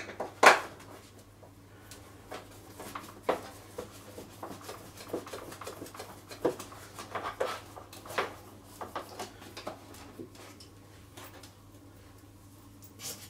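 A T15 Torx screwdriver undoing the metal screws in a Karcher pressure washer's plastic housing: scattered clicks and short creaks of the driver and the plastic, the sharpest about half a second in, over a faint steady low hum.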